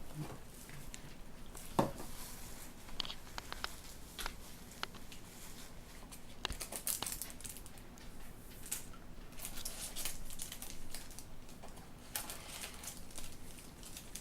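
Cardboard trading-card box and its packaging being handled and opened: irregular rustling, crinkling and scraping, with a single knock about two seconds in.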